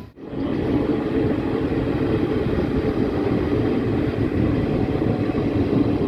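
ICF passenger coaches of an Indian express train rolling slowly into a station, the wheels and running gear giving a steady rumble heard from the open coach doorway. The sound breaks off briefly at the very start, then runs on evenly.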